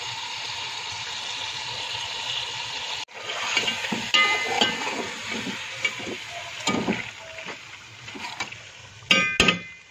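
Chicken frying in a metal pot, sizzling steadily, while a metal slotted spoon stirs it, scraping and clinking against the pot. The sound breaks off abruptly about three seconds in, then the stirring clinks come louder, with two sharp clinks near the end.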